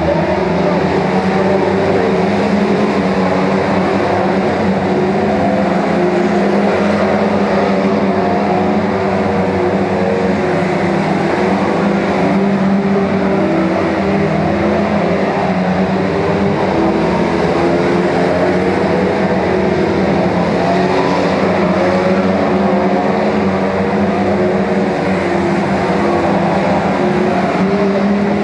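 Many saloon stock car engines running together as a pack laps the oval, a steady loud blend of engine notes whose pitches drift up and down as the cars accelerate and lift through the bends.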